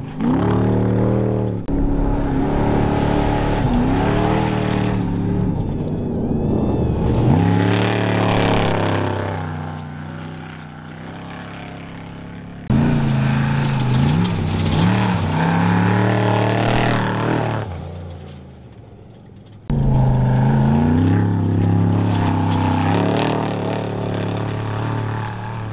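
Trophy truck engines at full throttle, revving up and dropping as they shift gears through several separate passes, each starting abruptly.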